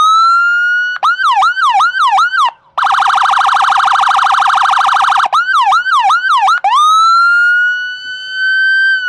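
Ford ambulance's electronic siren switching between modes: a rising wail held high, then about four fast yelp sweeps, a rapid pulsing tone for about two and a half seconds, another run of yelp sweeps, and a final rising wail held near the end before it cuts off suddenly.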